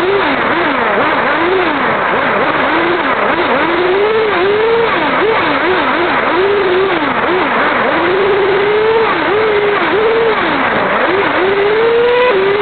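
Motor of a Kyosho RC model car, its pitch rising and falling quickly again and again as the throttle is blipped, over steady wind and rolling noise.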